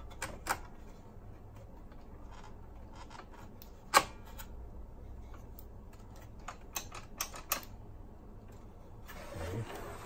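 Scattered clicks and knocks of plastic and metal parts as the opened chassis of a cassette boombox is handled, the loudest a single sharp knock about four seconds in, followed a few seconds later by a quick run of small clicks. Near the end, rubbing and shuffling as the unit is shifted.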